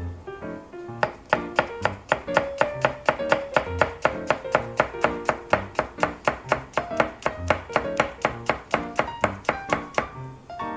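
Kitchen knife chopping rapidly on a cutting board, about four to five even chops a second, starting about a second in and stopping near the end. Light guitar background music plays underneath.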